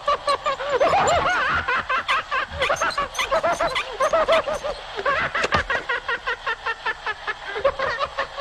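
Cartoon characters laughing hard in fast, high-pitched ha-ha-ha bursts, about four or five a second, set off by laughing gas.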